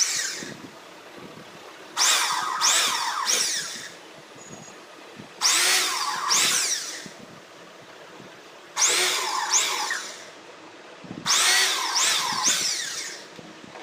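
Electric hand drill run in five short bursts of a second or two, boring into a wooden cabinet panel around a traced outline to cut out a subwoofer hole.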